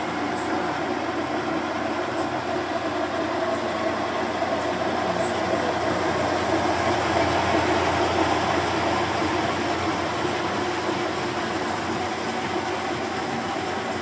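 Kenmore 2790 top-loading washing machine running with its lid open, the agitator working in the tub: a steady mechanical running noise that grows a little louder midway.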